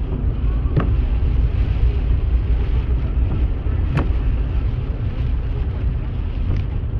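Stormy wind on the microphone, a loud steady low rumble, with sharp clicks about a second in and again about four seconds in.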